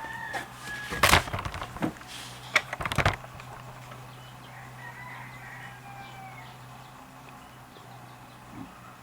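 A rooster crowing faintly, once at the start and again in the middle. A quick run of sharp knocks and clicks in the first three seconds is louder than the crowing.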